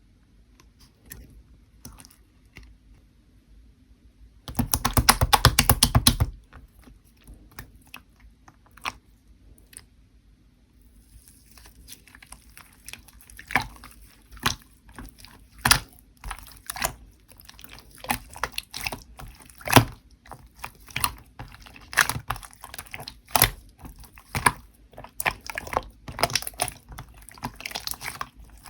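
Slime being squeezed and pressed by hand, making irregular sharp clicks and crackling pops. About five seconds in there is a quick run of rapid clicking that lasts under two seconds. The popping grows denser through the second half.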